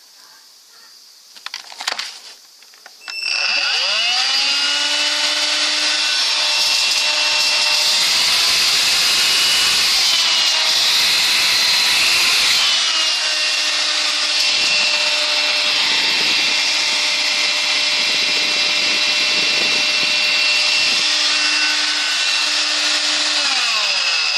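Electrolux ZB3114AK 18V cordless stick vacuum switched on after a couple of clicks, its motor spinning up with a rising whine and then running steadily with a high whine and rushing air, the airflow sound shifting now and then. It is running on a freshly replaced lithium battery pack.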